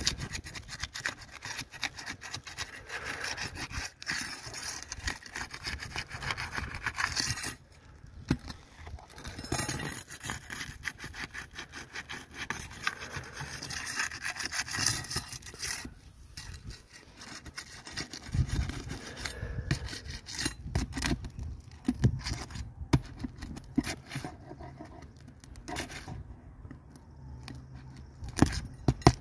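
Flat steel pry bar scraping and rasping under asphalt roof shingles, with scattered clicks and knocks, as shingle tabs are pried loose to remove a wind-damaged shingle. The gritty scraping comes in spells and thins out into separate knocks in the second half.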